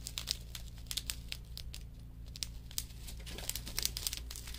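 Small clear plastic zip bags of diamond-painting drills crinkling as they are handled, a run of irregular small crackles over a low steady hum.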